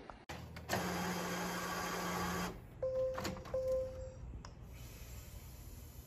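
Epson inkjet printer running: a steady whirring of its mechanism for about two seconds, then two short steady tones and a few sharp clicks.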